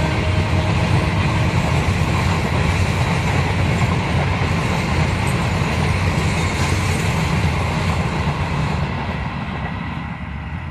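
Passenger coaches of an Indian Railways express train rolling past on the track, a steady rumble of wheels on rails that fades as the rear of the train moves away near the end.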